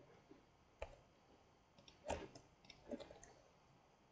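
Faint computer mouse clicks, about five short clicks spread irregularly, the loudest about two seconds in.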